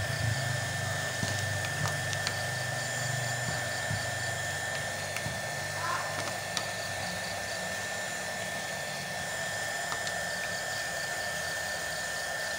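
Small handheld craft heat tool (heat gun) running steadily, its fan blowing hot air with a steady high whine over the rush of air, as it shrinks a plastic seal onto a bottle cap.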